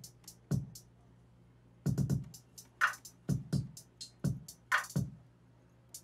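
A stripped-back hip-hop drum-machine beat played back, with most of its tracks muted: deep 808-style kicks that drop in pitch, light hi-hat ticks and two short mid-pitched stabs, separated by near-empty gaps.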